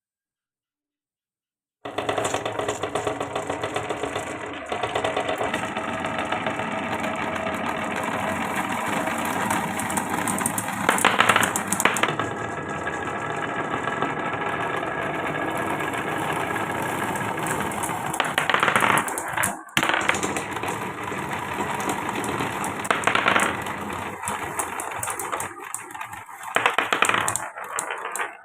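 Glass marbles rolling and clattering down a wooden marble run, a dense steady rattle of clicks that starts about two seconds in, with louder bursts of clacking around eleven, eighteen, twenty-three and twenty-seven seconds in.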